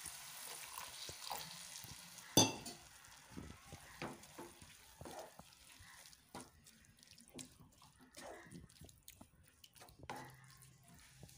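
Water poured into a hot pan of frying anchovy masala, hissing at first and dying away over about two seconds. A sharp knock on the pan follows, then scattered scraping and knocking as the spoon stirs the mixture.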